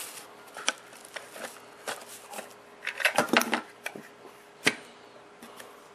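Handling noise as a plastic TV-shaped salt and pepper shaker is taken out of its cardboard box: scattered clicks and cardboard rustles, busiest about three seconds in, with one sharp knock about four and a half seconds in.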